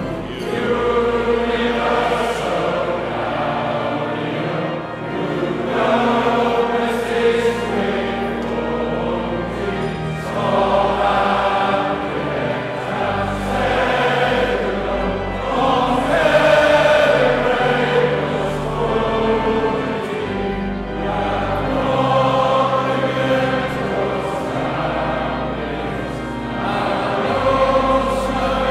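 A large group of voices singing a school song together, phrase by phrase, over held low notes of an instrumental accompaniment.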